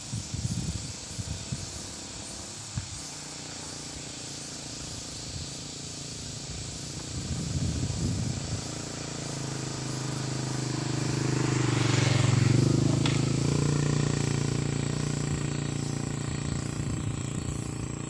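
A motor vehicle's engine passing by: a low hum that swells to its loudest about twelve seconds in and then fades away. Under it runs a steady high-pitched drone, and low gusts of wind rumble in the first half.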